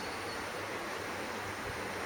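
Steady background noise, an even hiss with low rumble and a faint high steady tone, with no bird call or other distinct event.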